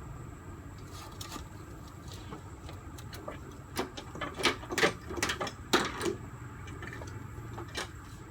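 Irregular clicks and clacks, most of them bunched together near the middle, from hands working on a car's engine wiring harness, pulling plastic clips and connectors loose.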